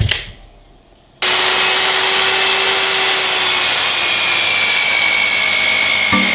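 A sharp click, then about a second in a power tool working wood starts abruptly and runs steadily, with a high whine over dense, loud noise.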